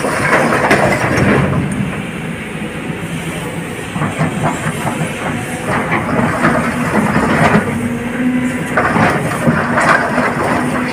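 Heavy diesel engine running steadily, with four bursts of clattering and rattling about a second long each. The bursts are typical of an excavator loading rock into a truck.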